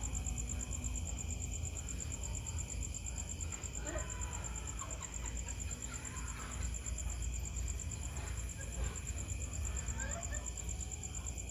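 Night insects trilling: a steady, rapidly pulsing high chirr with fainter high tones alongside. A low rumble runs underneath, and a few faint short calls come through about four, six and ten seconds in.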